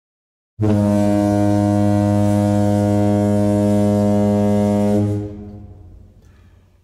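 A single deep, sustained horn-like blast used as an intro sound effect. It starts abruptly about half a second in, holds one steady low pitch with many overtones for about four and a half seconds, then fades away over the last two seconds.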